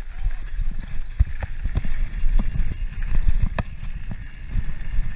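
Mountain bike rolling fast down a dirt trail: a steady low rumble with irregular knocks and rattles from the bike over bumps.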